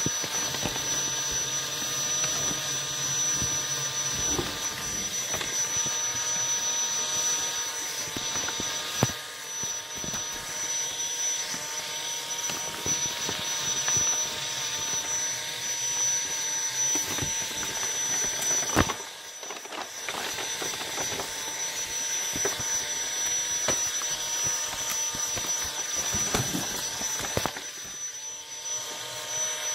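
A small motor running steadily, a continuous whir with a high whine over it, broken by a few sharp clicks and one louder knock about two thirds of the way through.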